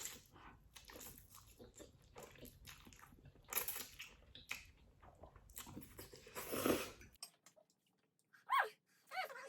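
Close-miked mouth sounds of someone eating black bean noodles: chewing with many small wet smacking clicks and a couple of louder noisy mouthfuls. Near the end come two short pitched sounds that fall in pitch.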